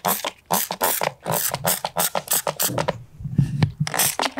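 Hand trigger spray bottle of degreaser squirting onto black iron pipe flanges and nipples in quick repeated sprays, about four a second. The spraying stops a little before three seconds in, a low thud sounds, and the spraying starts again near the end.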